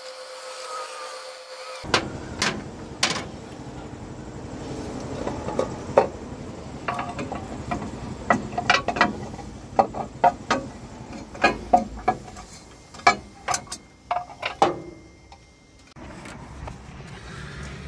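Irregular sharp metallic clicks and clanks of hand tools and bolts being handled while the valve cover of a John Deere 4045 diesel engine is unbolted and lifted off, quieter for a moment near the end.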